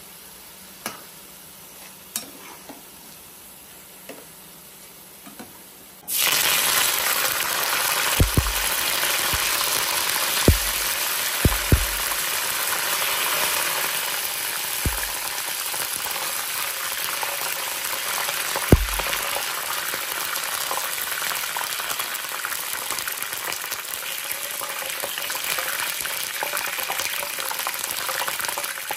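Curry leaves frying in hot oil in a pan, sizzling loudly and steadily once the sizzle starts suddenly about six seconds in; before that there is only a faint hiss with a few light clicks. A few sharp knocks of the metal slotted spoon against the pan come through the sizzle in the middle stretch.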